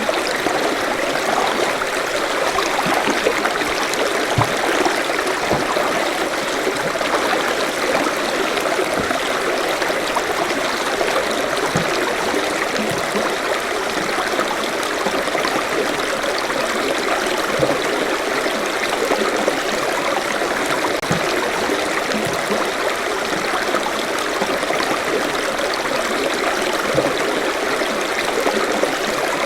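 A forest stream running steadily over rocks, a constant rushing of water with small gurgles and plops scattered through it.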